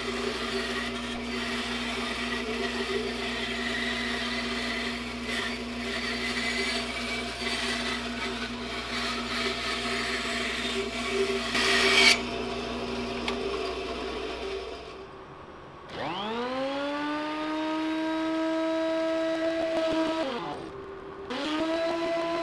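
Bandsaw running and cutting a laminated wooden canoe stem, with a louder burst of cutting about twelve seconds in, after which the saw winds down. A few seconds later a DeWalt benchtop thickness planer's motor starts with a rising whine, runs steadily, and dips briefly before running again near the end.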